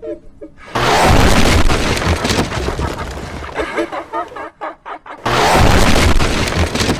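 Two loud booms like explosion sound effects, each lasting a second or more, about four and a half seconds apart.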